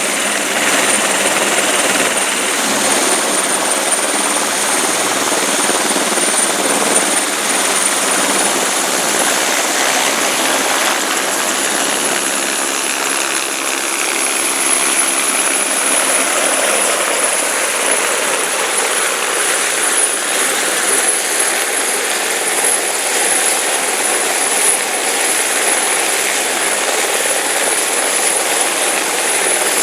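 Light turbine helicopter running close by, a steady rotor and engine noise with a high turbine whine that steps up slightly in pitch about eight seconds in.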